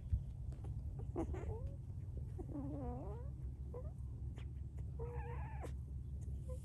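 Newborn puppies whining and squeaking: short wavering cries about a second in and again near three seconds, then a longer held whine about five seconds in.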